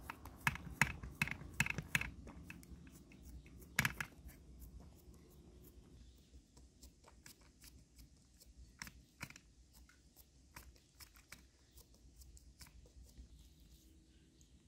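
Hands pressing and dimpling dough in a metal baking tray: a quick run of sharp clicks and taps, one louder tap about four seconds in, then fainter, sparser ticks.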